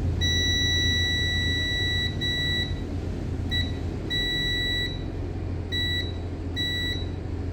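Multimeter continuity beeper sounding as the probe touches a pad on the engine ECM circuit board, marking a connection traced from ECM pin 50: one steady high beep of about two seconds, then several shorter beeps that break off and return as the probe contact comes and goes.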